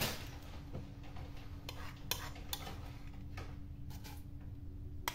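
A metal spoon scraping and clinking against bowls in short, scattered taps as melted chocolate is scooped out onto cornflakes.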